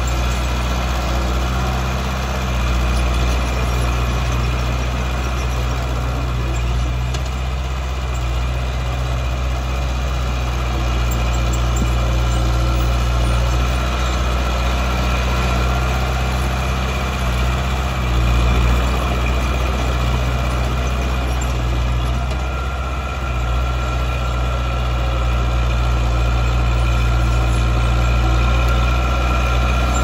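Heavy diesel engine running steadily at an even, low speed, with a faint steady whine above it.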